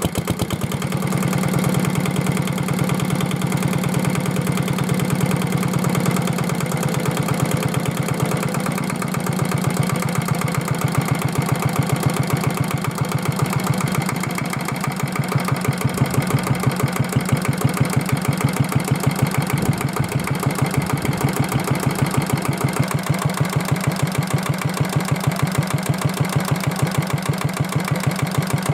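Kubota diesel engine running at a steady idle with an even chug, about four beats a second, dipping briefly near the middle. It runs after rainwater has been drained from its cylinder.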